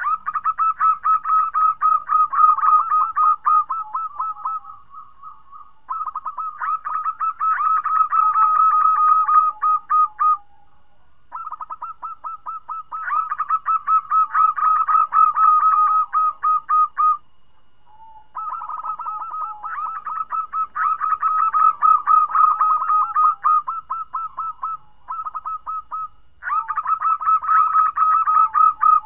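Female zebra dove (perkutut) calling to a male: long runs of rapid repeated notes, coming in about five bouts of several seconds each with short pauses between.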